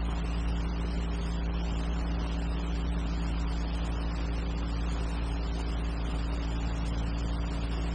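Steady low electrical hum with an even hiss, unchanging throughout: the background noise of an old film soundtrack.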